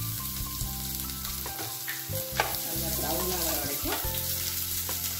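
Chopped garlic sizzling in hot oil in a non-stick pan, stirred with a spatula, with a few taps and scrapes of the spatula against the pan.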